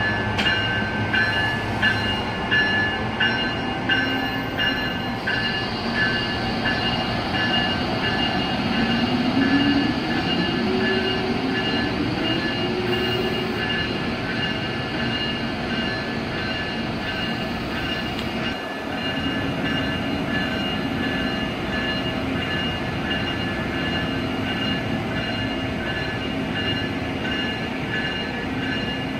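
Amtrak ACS-64 electric locomotive pulling its Amfleet coaches out of the station: a motor whine rises in pitch as it accelerates, over the steady rolling of the cars on the rails. A quick regular ticking, about two a second, runs through the first few seconds.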